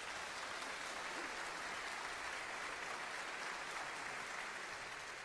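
Steady applause from a crowd, a dense even patter of many hands clapping.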